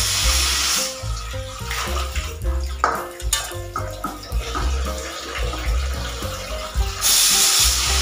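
Pressure cooker whistle venting steam in two loud hissing bursts, one right at the start and one starting about seven seconds in, each about a second long: the weight lifts because the cooker is at full pressure. Background music plays throughout.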